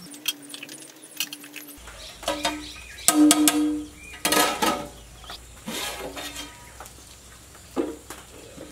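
Metal plate knocking and clinking against a metal cooking pot as it is set on as a lid, several strikes with a ringing tone, loudest a little past three seconds in.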